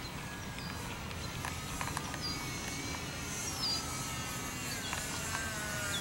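Electric motor and propeller of a HobbyZone Delta Ray RC plane whining faintly overhead, its pitch drifting up and down with the throttle, over a steady wind rumble, with a few short high chirps.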